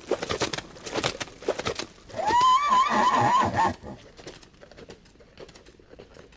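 A horse whinnying once for about a second and a half, its pitch wavering, after a run of quick clicks and knocks; faint clicks follow.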